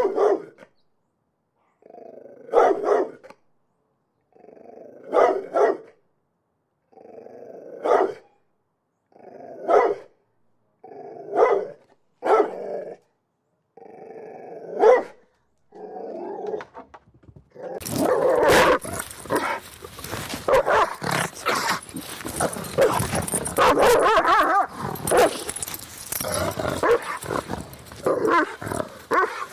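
Dog barking: a low growl running into a single bark, repeated about every two to three seconds. From about eighteen seconds in, a denser, unbroken stretch of barking and noise runs on.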